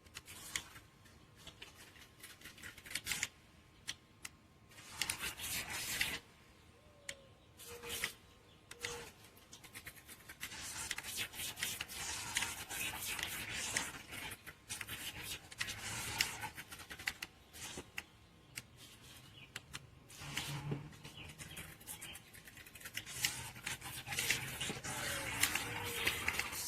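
Handling noise: irregular rustling and scraping with scattered clicks, coming and going.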